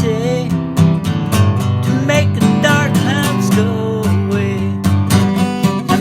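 Music: strummed acoustic guitar chords with a wavering melody line above them.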